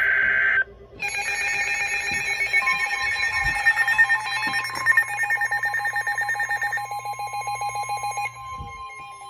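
Weather alert radio sounding its alert for an incoming warning. A short, loud data-header burst cuts off about half a second in. From about a second in, an electronic alarm rings and pulses rapidly over a steady attention tone. Most of the alarm stops near the end while the steady tone continues.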